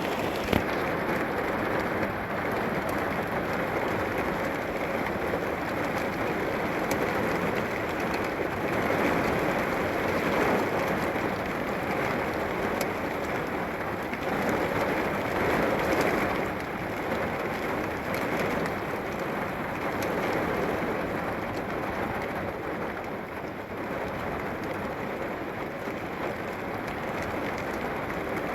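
Heavy rain falling steadily, a dense patter with scattered sharper drop hits that swells and eases a little.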